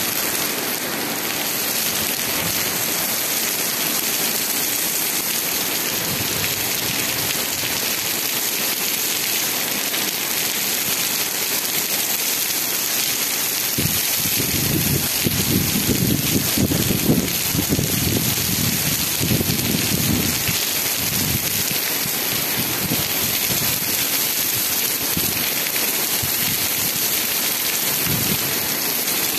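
Steady rain falling on a wet cobblestone street. A low rumble rises under the rain for several seconds about halfway through.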